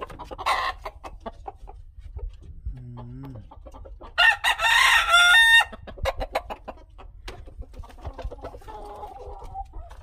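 A rooster crows once, loudly, about four seconds in, for about a second and a half, its pitch falling away at the end. Softer clucking comes before and after it.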